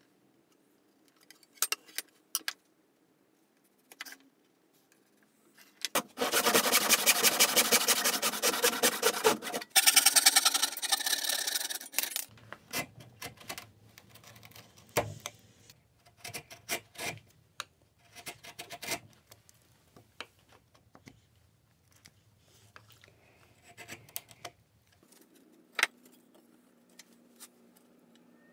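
Hand tools working oak. About six seconds in there is a loud stretch of rapid rasping cutting strokes, with a brief pause in the middle. After it come quieter scraping cuts of a chisel paring the wood, with scattered light taps.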